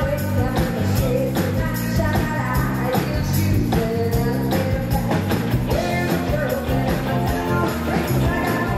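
Live rock band playing through a PA system with a lead singer, a steady drum beat under the sung melody.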